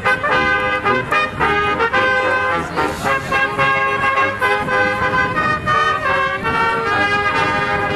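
Brass ensemble of trumpets, trombones and tuba playing live in harmony, several parts sounding chords together as the notes move along.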